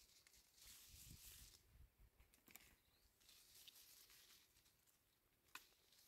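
Very faint rustling of apple-tree leaves and twigs as apples are picked by hand, with a couple of small sharp clicks, one about halfway through and one near the end.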